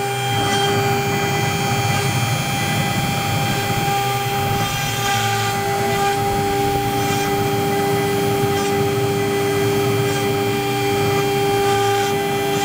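CNC router spindle running at speed with a steady whine of several tones while its bit engraves letters into a wooden board, over a rasping cutting noise and a low rumble. A second, lower tone joins the whine about halfway through.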